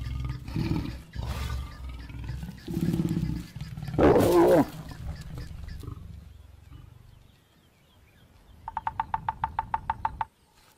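A mating pair of lions growling low and in pulses, rising to a short, loud snarl about four seconds in, then fading to a low rumble. Near the end a rapid run of about a dozen short high chirps, about eight a second.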